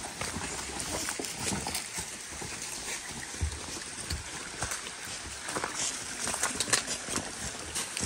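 Hikers' footsteps on dry fallen leaves and loose stones, an uneven run of steps with scattered clicks and knocks of stone.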